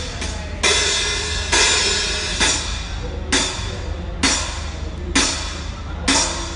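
Drum kit being played: accented hits with ringing cymbals about once a second, over a steady low hum.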